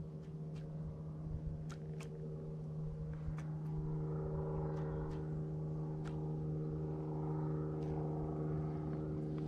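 A steady low hum with several sharp clicks scattered through it.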